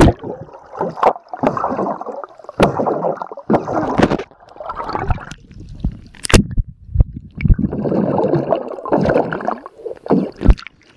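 Splash as the camera goes into a swimming pool, then muffled underwater sloshing and bubbling in uneven surges, with sharp knocks of water against the microphone.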